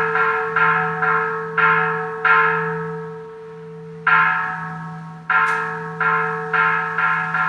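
Bells struck in a quick, uneven series, about ten strikes with a pause near the middle, each ring fading within about half a second over a steady low hum.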